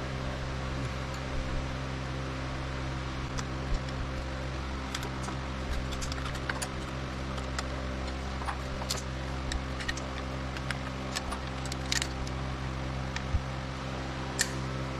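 Scattered light metallic clicks and clinks of screws and a hand tool as the stator cover screws of a 2005 Suzuki Boulevard C90 are put in, over a steady background hum.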